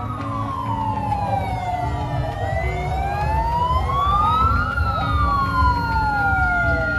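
Several vehicle sirens wailing at once, in slow overlapping rises and falls, over the low running of passing vehicle engines; a fire-team van with a flashing red light is among the vehicles.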